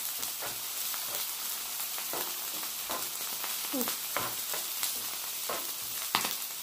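Fried rice and ribeye steak sizzling on a flat-top griddle, with a utensil scraping and tapping the griddle as the rice is stirred and tossed. A sharp click about six seconds in is the loudest sound.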